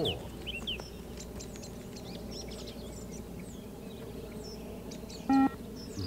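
Small birds chirping and calling in short bursts over a low steady background hum, then about five seconds in a single short electronic beep from the recorded beep-test (PACER) audio, the timed signal marking the end of a 20 m shuttle.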